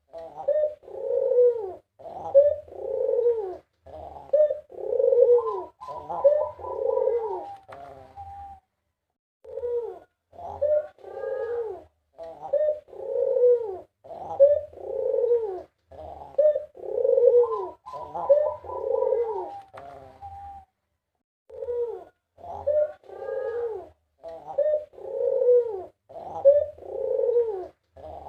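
White puter (Barbary) dove cooing over and over in arching, rolling phrases, breaking off briefly twice.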